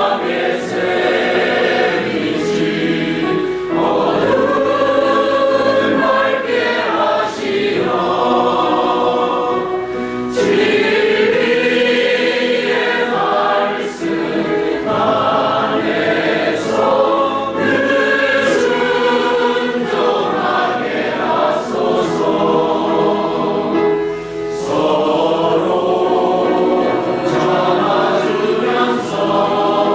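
Church choir singing a hymn in long phrases, with brief breaks between them.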